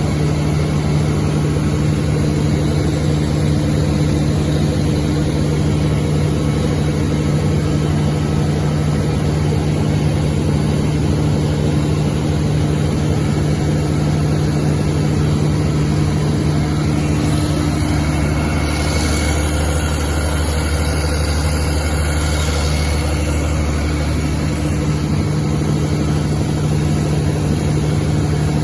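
200 kVA FG Wilson diesel generator set running at a steady speed, a loud even drone. For several seconds past the middle, a deeper hum and a higher hiss join in.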